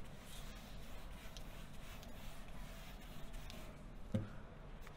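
Faint rubbing of a whiteboard eraser wiped across the board, with a soft thump about four seconds in.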